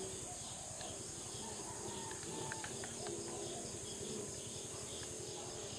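Steady high-pitched drone of an insect chorus, with a few faint short chirps about two to three seconds in.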